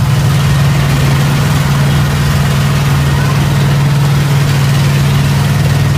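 Small tourist train's engine running with a steady low drone and a broad rumble of running noise, louder inside a tunnel.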